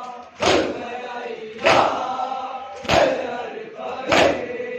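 A crowd of men doing Shia matam, beating their chests with their hands in unison: four loud slaps about a second and a quarter apart. Between the strokes, many male voices chant together.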